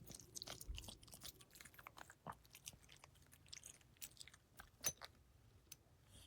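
Faint, irregular small clicks and crackles, with one sharper click about five seconds in.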